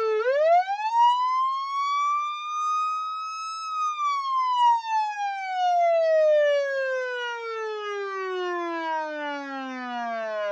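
Police siren sounding one slow wail: the pitch rises for about three and a half seconds, then falls gradually and keeps dropping until it is very low near the end, like a siren winding down.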